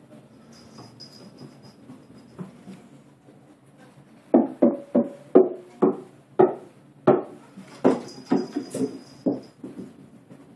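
A rubber bouncy ball bouncing on hardwood stair treads: about a dozen sharp, hollow knocks in quick, uneven succession over roughly five seconds, starting a little before the middle.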